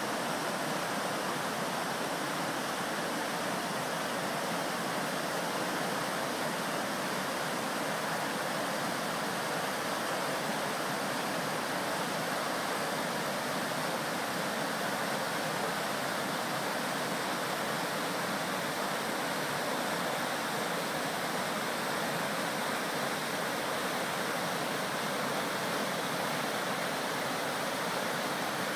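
River rapids: fast, high water pouring over and between boulders, a steady rushing noise that never breaks or changes.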